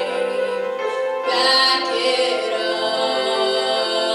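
A young female singer performing a show tune into a microphone over sustained musical accompaniment, with her voice coming in louder about a second and a half in.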